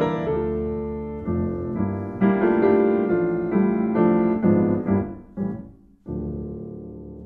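Piano music: chords and melody notes struck in turn, thinning out about six seconds in to one last low chord that fades away.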